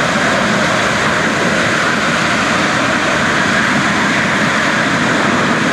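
C-17 Globemaster III's four Pratt & Whitney F117 turbofan engines running on the runway: a loud, steady jet rush with no distinct whine or change in pitch.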